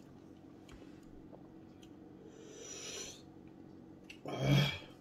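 A man breathes out in a long hissing breath, then coughs once into his fist near the end, reacting to the burn of extremely spicy chicken wings.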